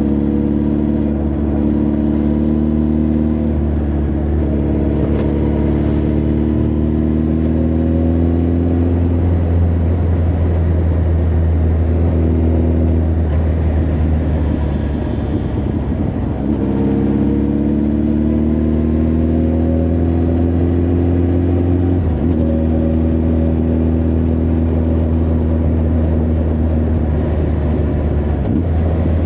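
Honda CB1300 Super Bol d'Or's inline-four engine and exhaust running under way while riding. The pitch climbs slowly as the bike gathers speed. Partway through, the note dips briefly and drops in pitch, then climbs again. Steady wind rush runs underneath.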